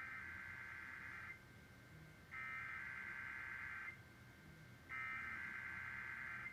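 Emergency Alert System SAME header: three bursts of warbling digital data tones, each about a second and a half long with about a second between, the opening of an EAS Required Weekly Test broadcast over the radio.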